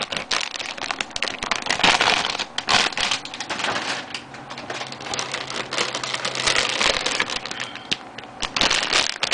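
Plastic packaging crinkling and clicking as bagged plastic model-kit runners are handled: an irregular, dense crackle of quick clicks.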